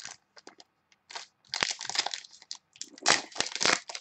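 Foil trading-card pack wrapper crinkling and tearing in hand-handled bursts, loudest about halfway through and again near the end.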